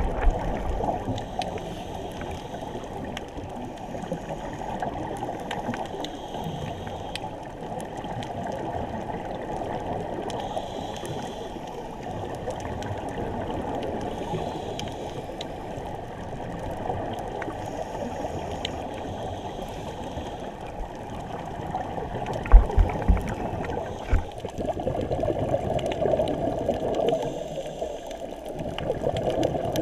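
Muffled underwater wash heard through a GoPro's waterproof housing on a scuba dive, with a faint gurgle of exhaled bubbles every few seconds. A few dull knocks come about three quarters of the way in.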